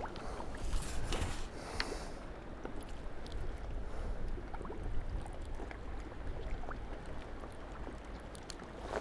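Wind buffeting the microphone as a steady low rumble, with choppy reservoir water lapping and a few faint clicks of a fish being handled and unhooked.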